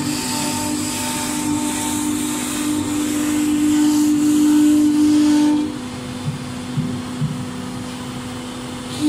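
CNC router's HQD 4.5 kW air-cooled spindle running with a steady whine as the bit carves a relief pattern into a board, with a hiss of cutting. About two-thirds of the way through the sound drops and the hiss fades, leaving a quieter whine.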